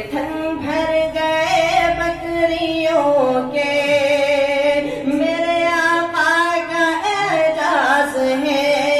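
A solo voice sings a naat, a devotional Urdu poem in praise of the Prophet, without instruments. It draws out long, wavering melismatic notes with no clear words, the pitch stepping down and back up several times.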